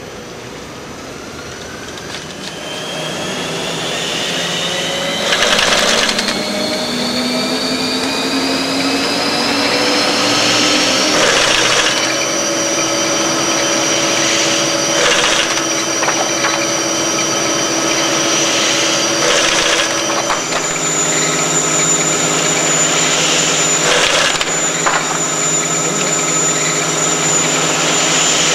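A carton folder-gluer running. Its drive whine rises in pitch over the first ten seconds or so as the machine speeds up, then holds steady. About twenty seconds in the whine shifts to a new steady pitch. A handful of brief bursts of noise cut across it.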